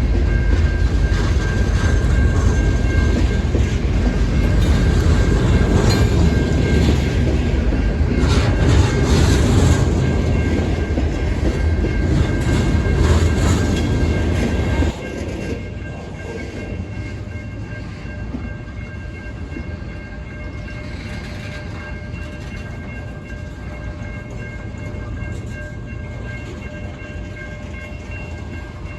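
Freight train rolling past, with a heavy rumble and rail noise that drops sharply about halfway through to a quieter, steady rumble.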